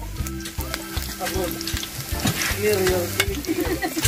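Hot oil sizzling and crackling in a large wok as garlic and ginger fry, with many short crackles and pops.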